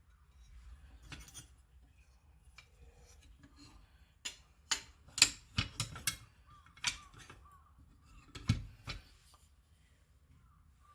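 Handling noises: a run of sharp clicks and clinks from hard objects being picked up and set down, clustered about halfway through with a last couple near the end.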